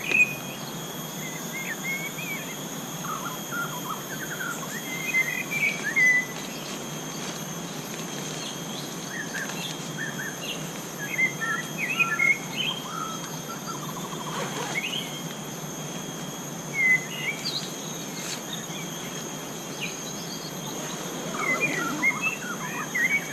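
Forest ambience: scattered short bird chirps and calls, in bursts every few seconds, over a steady high-pitched insect drone.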